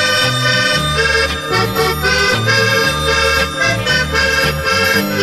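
Accordion orchestra playing an instrumental pop tune: an accordion melody carried over a steady bass line.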